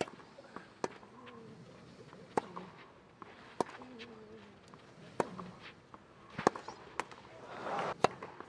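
Tennis rally on a clay court: a racket strikes the ball with a sharp pop about every one and a half seconds, with faint crowd murmur between the shots.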